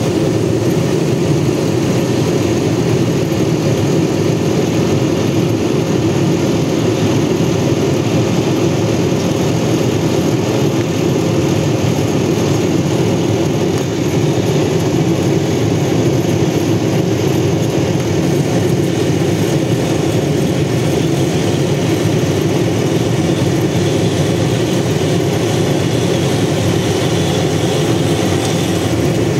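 A steady, unbroken mechanical hum, even in loudness throughout.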